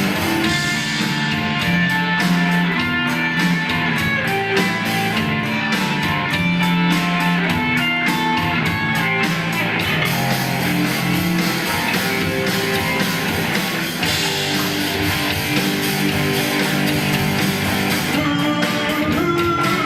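A live band plays an instrumental passage led by guitars, with steady strumming and picked melody lines and no vocals.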